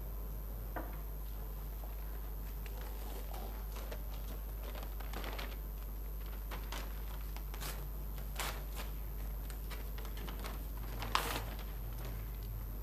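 Quiet room tone with a steady low hum, broken by faint scattered rustles and light clicks; the sharpest click comes about eleven seconds in.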